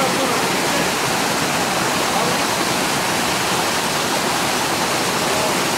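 Running water, a steady rush with no breaks.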